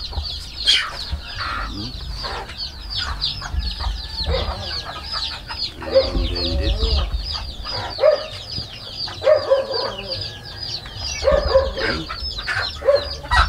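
Brooding hens clucking low in their basket nests as they are disturbed, over a constant, rapid high peeping of chicks, with a few sharp knocks.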